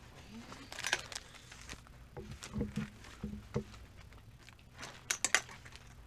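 Metal clothes hangers clacking and scraping along a garment rack rail as suit jackets are pushed aside, with a short rattle about a second in and a quick run of clacks near the end.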